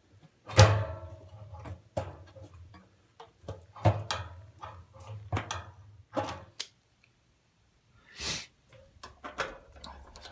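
Metal clunks and clatters of a gas water heater's burner assembly being fitted back into the burn chamber, with one sharp knock about half a second in, several lighter knocks after it, and a short scrape near the end.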